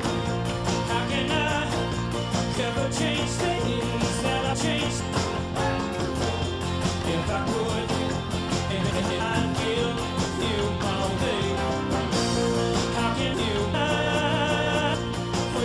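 Live rock band playing, several electric guitars over a steady beat, with a man singing lead at times.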